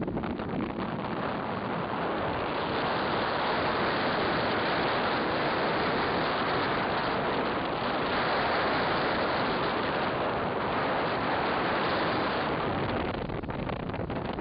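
Steady rushing noise of wind and water on a sailboat under way, swelling about two seconds in and easing off near the end.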